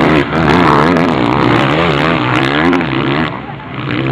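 Motocross bike engines revving hard, their pitch repeatedly rising and falling as the throttle is worked through the corner. The sound drops away briefly near the end.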